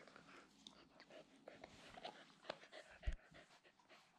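Faint clicks and rustling from a border collie nosing at a person's lap, with one low thump about three seconds in.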